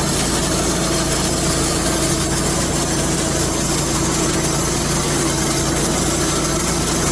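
Homemade band sawmill running steadily, its blade partway through a lengthwise cut in a mesquite log.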